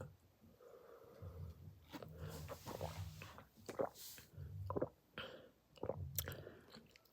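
Quiet chewing and mouth sounds: scattered small clicks and smacks with soft low rumbles in between.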